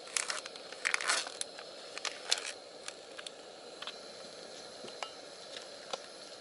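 Plastic spork scraping cooked rice out of a thin plastic rice tray into a bowl: crinkling of the tray with sharp scrapes and taps, densest in the first two and a half seconds and sparser after, over a steady background hiss.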